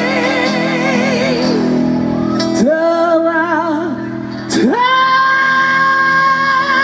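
Live band playing a slow Malay ballad, with a singer holding long notes over it. One held, wavering note fades out, then the voice slides up into a new long note twice, about two and a half and about four and a half seconds in.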